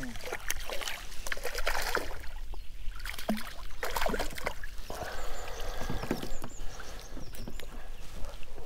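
Water splashing and irregular knocks and clicks at a small fishing boat as a hooked perch is brought in and handled, with a longer wash of splashing about halfway through.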